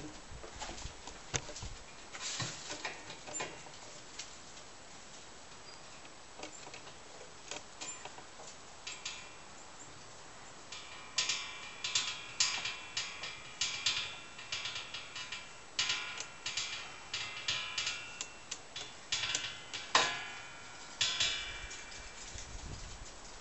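Quick, irregular metallic clicks and clinks from the chain and hooks of a heavy hanging sign shifted by hand. The clicks are sparse at first and come thick and ringing from about halfway.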